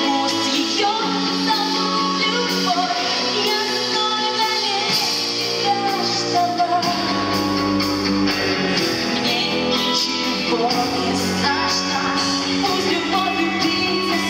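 Live rock band playing through a concert PA, with a woman singing over electric guitars and drums; deep bass notes come in about five seconds in.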